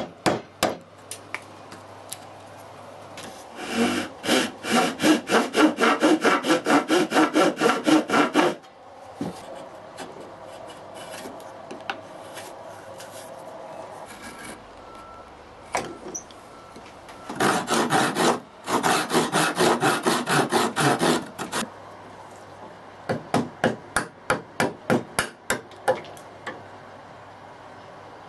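Hand tools working wood: a few sharp mallet taps on a chisel at the start, then two runs of fast back-and-forth strokes, about four a second and each some four seconds long. Near the end come slower, separate strokes of a file working the sliding-dovetail socket.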